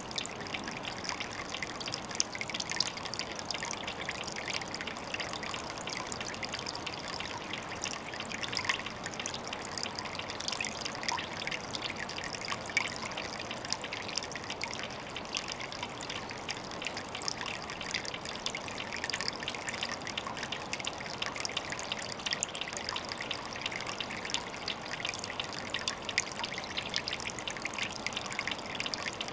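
Water trickling steadily, a dense run of tiny splashes with no break.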